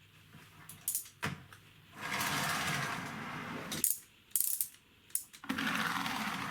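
Plastic gear train of a 3D-printed spring-powered wind-up car running with a steady whir as the spring unwinds. It runs twice, with sharp clicks in the quiet gaps between.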